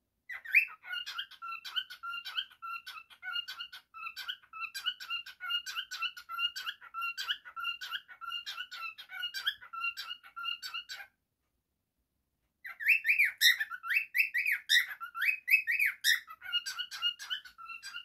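Cockatiel singing: a long run of quick, repeated whistled notes. After a pause of about a second and a half a little past the middle, it gives a few louder rising whistles, then returns to the quick repeated notes.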